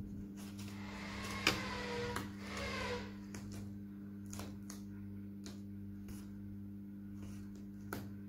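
Paper and thin card rustling and tapping as folded paper flowers are handled and pressed onto a card vase, with a sharp click about a second and a half in, over a steady low hum.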